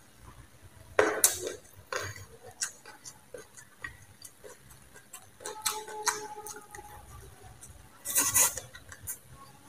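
Chopsticks and tableware clicking against a plate in scattered sharp ticks, the loudest about a second in, with a short slurp of instant noodles about eight seconds in.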